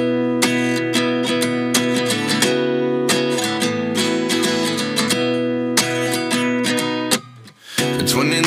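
Background music: strummed acoustic guitar with a steady rhythm, dropping out briefly about seven seconds in before resuming.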